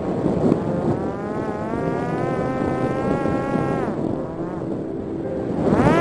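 The electric motor and propeller of a Parrot Disco fixed-wing drone, a buzzing whine over a rushing noise. The whine climbs in pitch about a second in, holds steady, drops away near four seconds, then climbs again near the end.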